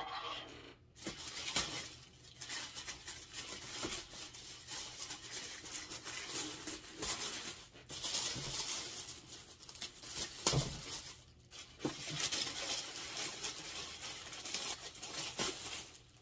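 Clear plastic wrapping crinkling, rustling and tearing as it is pulled and worked off a large plastic toy spaceship, with one louder sharp crack about ten and a half seconds in.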